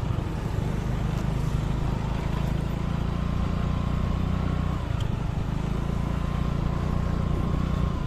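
Motor vehicle engine running steadily on the move: a low hum with a thin, steady whine above it.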